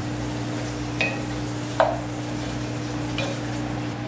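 Wooden spoon stirring chopped dasheen bush leaves in a cooking pot, with three light clinks against the pot over a steady low hum.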